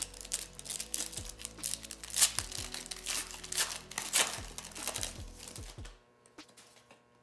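Foil Pokémon booster pack wrapper being torn open and crinkled by hand, a dense crackling that runs for about six seconds and then stops. Faint background music underneath.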